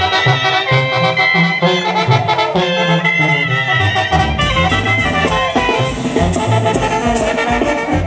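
Brass band music, with trumpets and trombones playing a tune over a bass line that steps from note to note.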